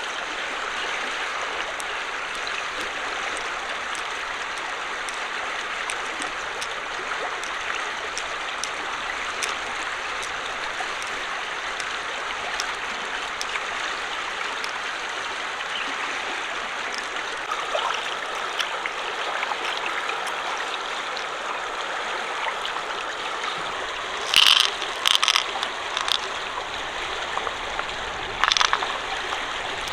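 Shallow flowing water running steadily, with a few brief sharp sounds rising above it late on, once in a quick cluster and once more near the end.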